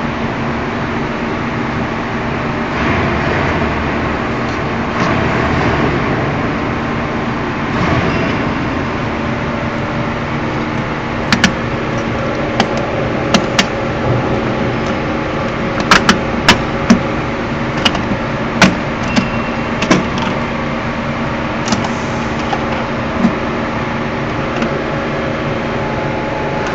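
Wire-cutting machine running with a steady hum; through the middle stretch a dozen or so sharp clicks sound at irregular intervals.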